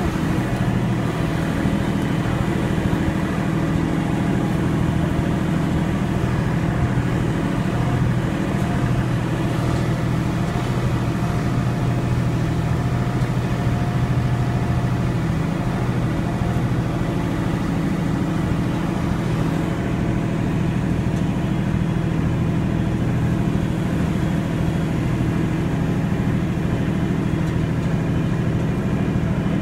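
Steady low drone of a ride train in motion, its engine and running gear heard from on board.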